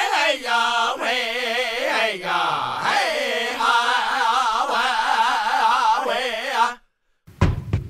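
A single voice chanting with a strong, wavering vibrato, stopping about seven seconds in; after a brief gap, a percussive beat begins.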